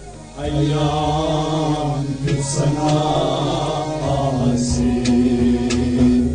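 Kashmiri Sufi devotional song: voice singing long, held chanted phrases over a sustained harmonium accompaniment. The music cuts off abruptly at the end.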